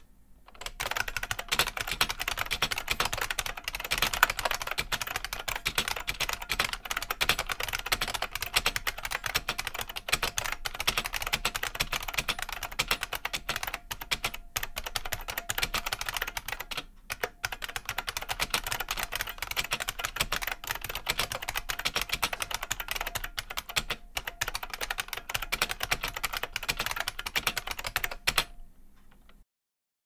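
Fast, continuous typing on an IBM Model M13's buckling spring keys: a dense stream of sharp clicks with a few brief pauses, stopping near the end.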